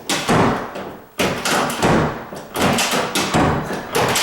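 Bathroom door being pushed shut against its strike plate over and over, the latch and door knocking in about six thuds roughly two-thirds of a second apart, as the fit of the latch in the adjusted strike plate is tested.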